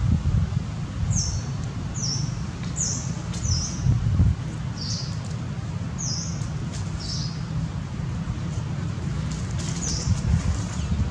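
A bird chirping: short, high notes that each slide down in pitch, repeated about eight times at uneven intervals of roughly a second. Under the chirps runs a steady low rumble of wind on the microphone.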